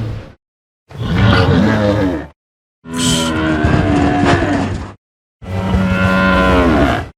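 Pachyrhinosaurus creature sound effects from Prehistoric Planet: three deep calls, each lasting one to two seconds with dead silence between, after the end of a previous call at the start. The last call slides down in pitch as it ends.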